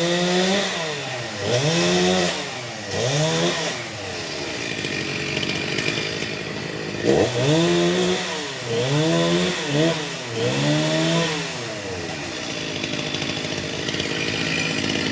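Chainsaw engine revved in a series of quick surges, pitch climbing and dropping back three or four times, then running steadier and lower for a few seconds before another run of surges and a steady stretch near the end.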